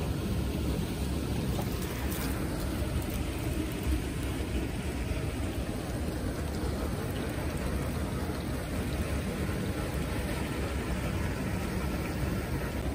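Steady rushing of running water with a low, even rumble underneath.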